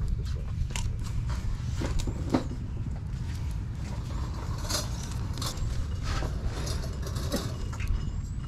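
Clothes hangers sliding and clicking along a metal garment-rack rail as garments are pushed aside and pulled out: irregular scrapes and clinks over a steady low rumble.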